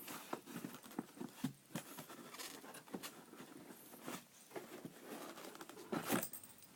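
Packaging being handled by hand: irregular rustling, crinkling and small clicks as parts are lifted out of the box and its foam.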